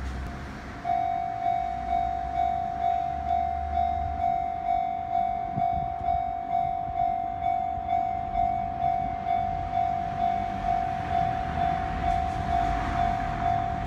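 Railway level-crossing warning bell starts about a second in and rings in steady even pulses, about two a second. It is the alarm that a train is approaching the crossing.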